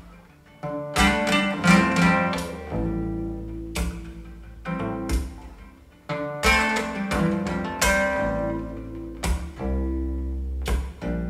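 Instrumental passage of an indie-folk song played back through a JBL 4305P powered bookshelf studio monitor: plucked guitar notes over a deep bass line. The music drops away briefly about six seconds in, then comes back in.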